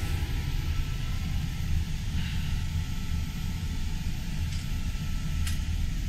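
Steady low rumble and hum of machinery running aboard a motor boat, heard inside the cabin. A faint click comes near the end.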